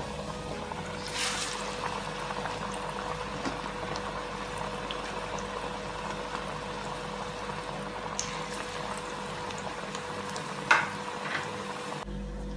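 Plantain cups deep-frying in hot oil, a second fry to crisp them: a steady bubbling sizzle with a few sharp clicks, the loudest one near the end. The sizzle stops abruptly just before the end.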